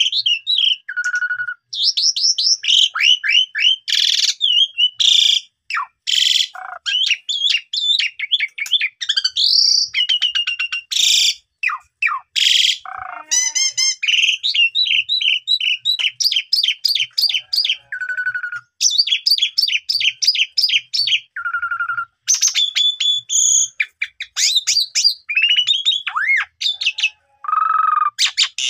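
Asian pied starling (jalak suren) in full, continuous song: a fast, varied run of whistled slurs, rapid trills and chattering phrases broken by harsh rasping notes.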